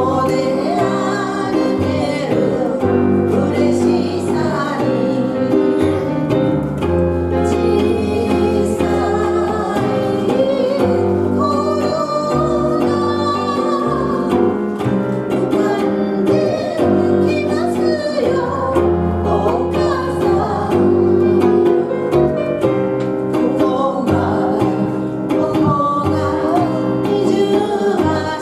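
Live band playing a Japanese enka song: a sung vocal melody over electric bass, keyboard and electric guitar, with a steady bass line throughout.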